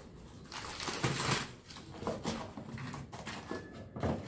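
Packets rustling and knocking against a cardboard box as they are handled and set into it, loudest about a second in.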